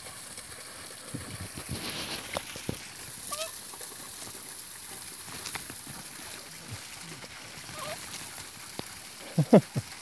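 Two dogs, one a Jack Russell terrier, play-fighting and scuffling in dry leaf litter and soil, with a few brief whines and two short, loud yips near the end.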